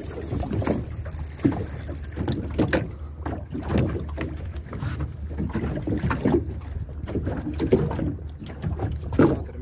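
Water lapping and splashing with irregular small knocks, over a steady low wind rumble on the microphone.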